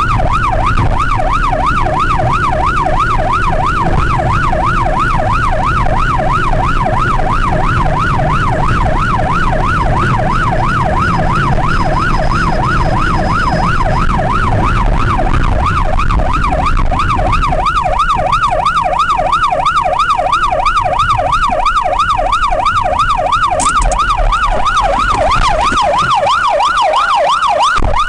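Police car siren in a rapid up-and-down yelp, two to three sweeps a second, over the rumble of engine and road noise during a pursuit. The rumble drops away near the end while the siren keeps going.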